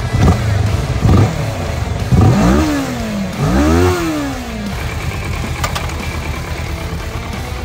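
Motorcycle engine revved several times: two short blips, then two bigger revs that rise and fall steeply in pitch about two and four seconds in, before it settles back to a steady idle.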